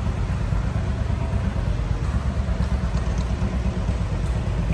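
A steady low rumble with a rapid flutter in it and no distinct events.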